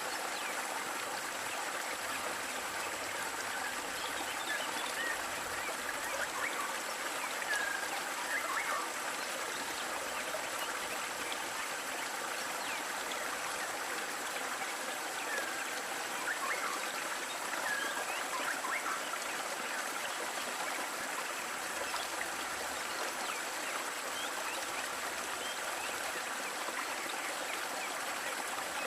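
Waterfall running steadily, water splashing and trickling without a break.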